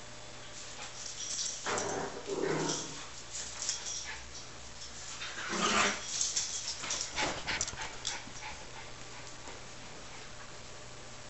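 Small dog vocalising in two short bouts, about two and six seconds in, with scattered light clicks between.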